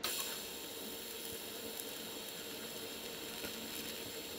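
DC TIG welding arc from an XTM 201Di, lift-started at about 35 amps on 0.8 mm sheet metal, striking right at the start and then burning with a steady soft hiss and a faint hum.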